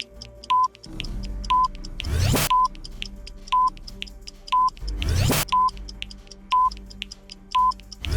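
Countdown timer sound effects: a short electronic beep about once a second over fast ticking and a low music bed, with a rising whoosh about every three seconds as the count steps down a number.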